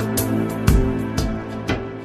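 Background music with a steady beat: sustained instrument notes with a drum hit about twice a second.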